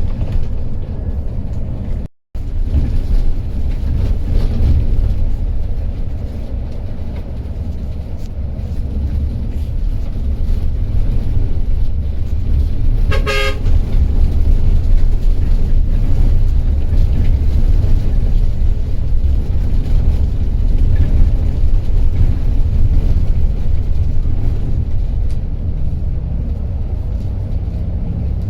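Steady heavy low rumble of a passenger coach driving on a rough road, heard from inside the bus. A single short vehicle horn toot sounds about halfway through. The audio drops out for a moment about two seconds in.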